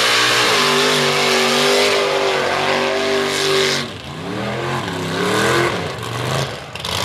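Open-header mud truck engine at full throttle, its revs held high, then dipping sharply about four seconds in, climbing again and falling away near the end, as the oversized tires churn through the mud pit with a heavy hiss of spray.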